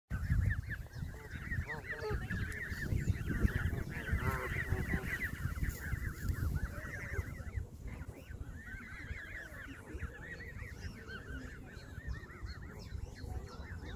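Canada goose goslings peeping, many short high calls overlapping one another, with a brief lull about eight seconds in. A low rumble runs underneath.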